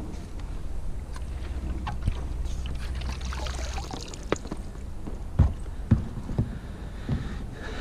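A long pole is pushed down into the water beside an inflatable boat to sound the depth. The water splashes and swirls around it, and a few sharp knocks follow in the second half.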